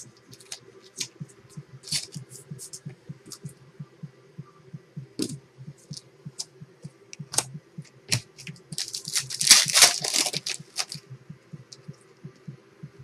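Basketball trading cards handled and flipped, with many small clicks and taps over a steady low hum. About nine seconds in comes a loud ripping crinkle of about two seconds, a card pack's wrapper being torn open.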